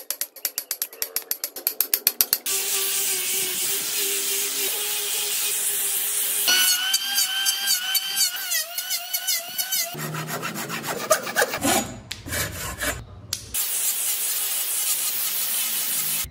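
Woodworking tools in quick succession. First comes a run of rapid knocks that speed up as a chisel is worked between saw kerfs in a solid wood block. Then, about two and a half seconds in, a power tool starts running steadily, followed by an electric hand planer whose whine wavers in pitch as it cuts the wood, and heavier rumbling knocks before a sander runs near the end.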